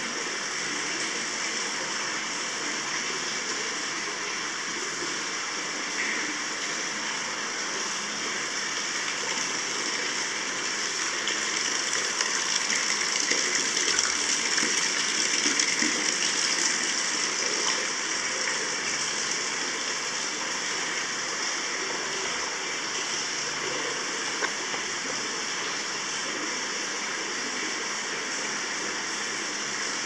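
Hot spring water pouring steadily into a bath, an even splashing rush that grows a little louder for several seconds midway.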